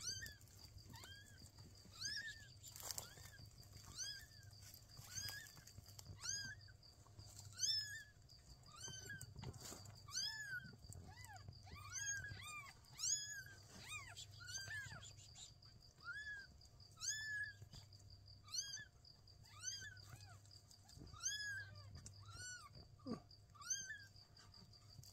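Newborn kittens mewing: a steady string of short, high cries that rise and fall, about one or two a second, with several voices overlapping at times.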